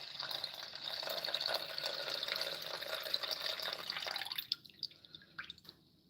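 Milk being poured in a steady stream that stops about four seconds in, followed by a few faint ticks.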